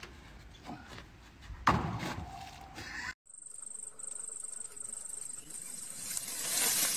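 A single heavy thud about two seconds in. After a break, insects trill in a high, rapidly pulsing buzz.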